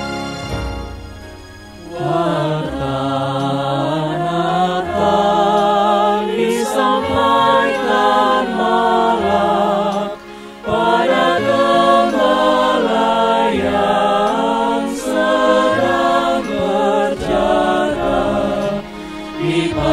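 Choir singing with instrumental accompaniment, sustained notes with vibrato, coming in about two seconds after a music intro fades out.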